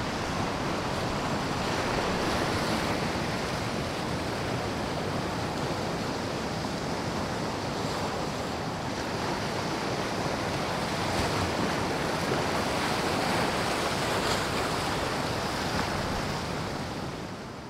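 Storm-driven sea waves breaking over rocks and surging ashore: a steady, heavy rush of surf with wind buffeting the microphone. The sound fades out near the end.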